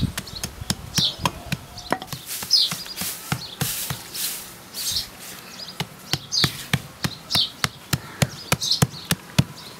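Small hammer knocking and chipping at bricks and stones, irregular sharp strikes a few times a second, with a stretch of scraping grit about two to four seconds in. Birds chirp repeatedly in the background.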